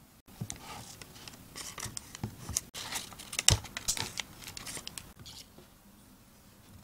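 Long knife cutting down through a fudgy brownie slab and scraping on parchment paper: a run of crinkling, scratching strokes with a few sharp clicks, loudest about halfway through, dying away about a second before the end.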